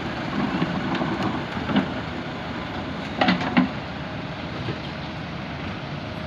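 JCB backhoe loader's diesel engine running steadily, with a sharp knock just under two seconds in and a quick run of louder knocks a little past three seconds.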